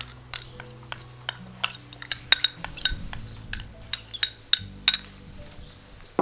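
A metal spoon scraping thick peach chutney out of a glass bowl into another glass bowl, with a quick irregular run of sharp clinks of spoon against glass.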